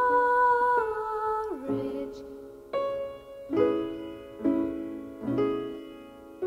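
Background music: a long held note slides down, then piano chords are struck about once a second, each fading away.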